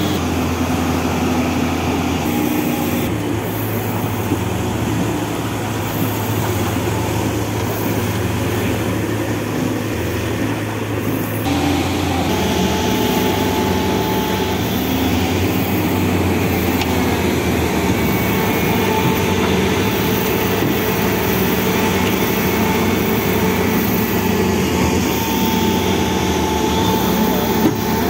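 Diesel engines of large hydraulic excavators running steadily under load, a continuous low hum with a noisy wash over it; the engine note changes abruptly about eleven seconds in.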